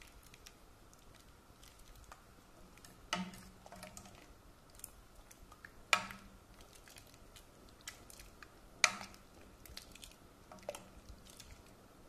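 A metal spoon stirring thick soup in a pressure cooker pot, with three sharp clinks of the spoon against the pot about three seconds apart, each ringing briefly. Lighter taps and scrapes come between them.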